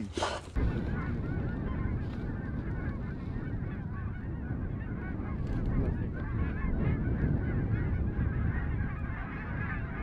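A large flock of geese honking in flight, with many calls overlapping into a steady chorus over a low rumble.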